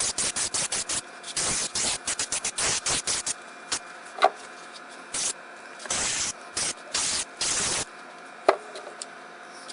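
Aerosol can of spray adhesive hissing in a quick run of short squirts, then a few longer sprays. Two sharp knocks fall between the sprays, about four seconds in and again near the end.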